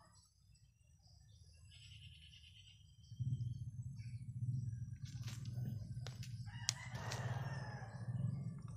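A rooster crowing, over a low steady rumble that comes in about three seconds in, with a few sharp clicks.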